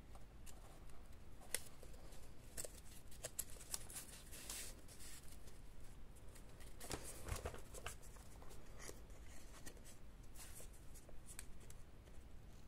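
Soft rustling and light taps of paper ephemera being handled and sorted on a tabletop, with a louder rustle about seven seconds in.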